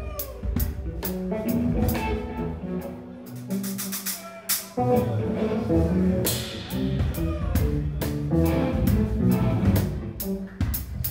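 Live band playing through amplifiers: drum kit, electric guitar and bass guitar. Midway the drums drop out, leaving held low notes, and then a loud hit brings the full band back in.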